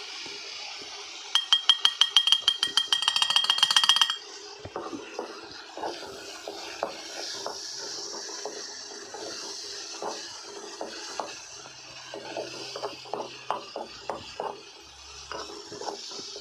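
A rapid run of loud, ringing metal taps on the cookware for about three seconds. After that comes the irregular scraping and knocking of a spatula stirring spice masala as it sizzles in oil in an aluminium kadhai.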